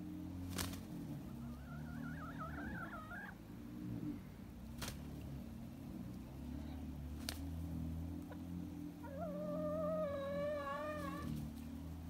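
Chickens making drawn-out, wavering calls, one about a second in and a louder one near the end, over a low steady hum, with three sharp clicks in between.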